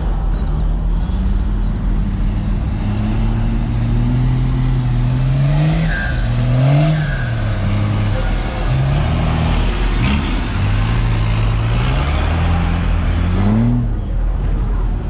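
Pickup truck engine running as the truck rolls slowly, its pitch climbing and dropping back several times as it is revved and eased off, with the last climb cut off sharply near the end.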